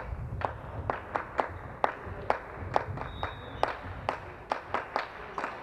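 Sharp slaps and smacks on a volleyball court, several a second at no steady rhythm.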